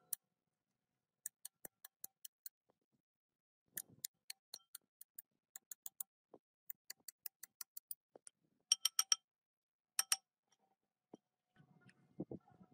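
Runs of sharp, light clicks and taps, about five a second, with short pauses between runs. A few louder metallic clinks with a brief ring come about nine and ten seconds in.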